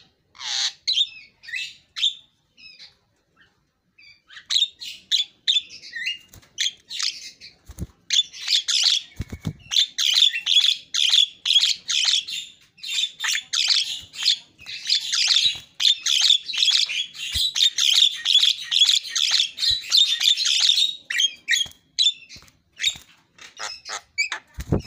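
Javan myna singing a fast, chattering song of quick chirps and squawks, full of imitated calls (isian). There is a pause of about two seconds early on, then a dense run of rapid notes through the middle that thins out toward the end, where there is a short low thump.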